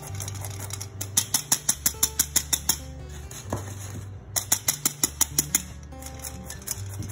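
Metal hand flour sifter clicking rapidly as it is worked, about seven clicks a second, in two runs, over background music with a low bass line.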